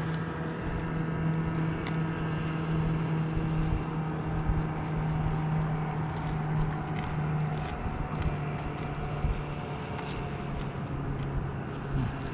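A motor running steadily with a low hum that drops slightly in pitch about two-thirds of the way through, with scattered light clicks over it.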